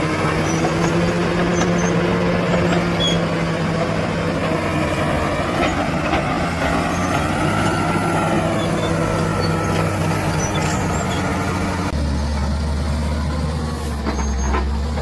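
Bulldozer's diesel engine running steadily while working, its low drone changing character about twelve seconds in.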